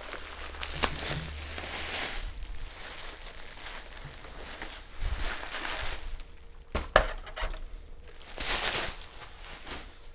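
Packing material such as bubble wrap, foam and cardboard rustling and crinkling as it is pulled away, with a couple of sharp knocks, one near the start and one about seven seconds in.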